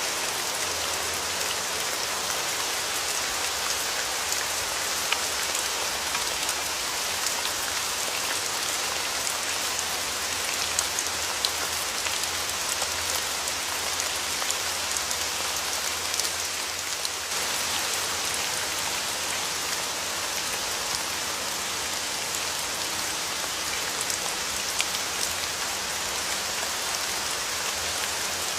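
Steady rain falling: an even hiss of rain with scattered louder drop taps.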